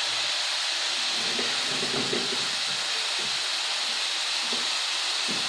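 Pieces of pork frying in oil in a frying pan, a steady sizzle, as the meat browns toward golden on both sides.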